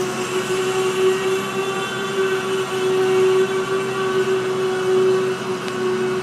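Double-stack intermodal freight train rolling slowly past, its wheels giving a steady high-pitched squeal over the rumble of the cars.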